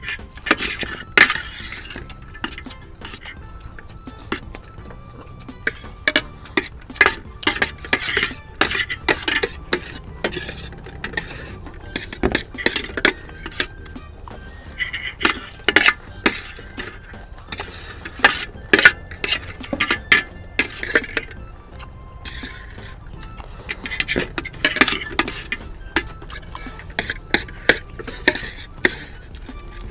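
Eating utensils clinking and scraping against bowls in quick, irregular strokes as several people eat fast, over background music.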